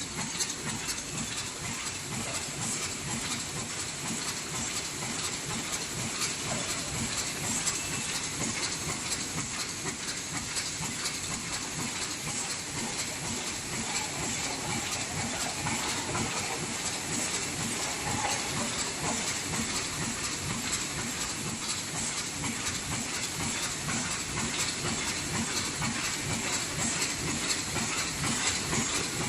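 SM-100 double wall paper cup sleeve machine running at production speed, about 130 sleeves a minute: a fast, even run of clicks over a steady hiss.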